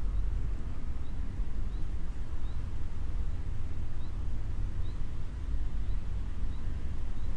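Outdoor city ambience dominated by a steady low rumble, with a faint, short, high chirp repeating about once a second.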